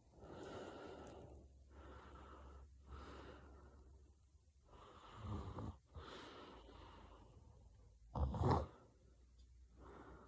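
A sleeping woman breathing noisily through a series of snoring breaths. About eight seconds in comes one short, loud snort-like snore, the loudest sound.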